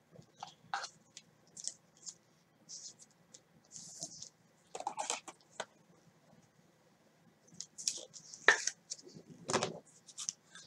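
Trading cards being handled by gloved hands: scattered quiet clicks, taps and rustles, with a few louder scrapes about five seconds in and again near the end.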